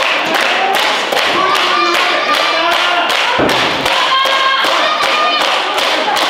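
Quick rhythmic thuds, about three a second, with voices shouting over them.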